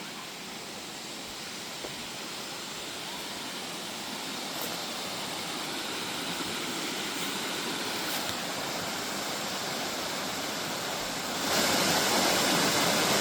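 Water of a small waterfall rushing steadily, growing gradually louder, then louder still for the last couple of seconds.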